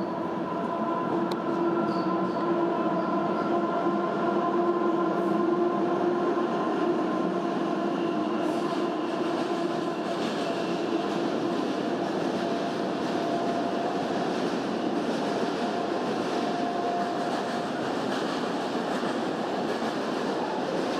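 Freight train running through a station: a steady rumble of wheels on rail, with a held squealing tone over it, growing louder a couple of seconds in.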